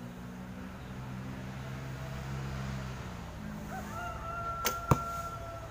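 A Turkish-style horsebow shot: about four and a half seconds in, the bowstring snaps on release, and a fraction of a second later the arrow hits the target with a sharp crack, the loudest sound. A rooster crows in the background around the shot.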